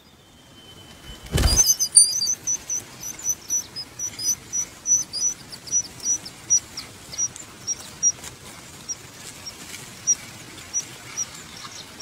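A single dull thump about a second and a half in, then bird nestlings cheeping: a run of short, high begging calls, several a second at first, slowing and thinning out towards the end.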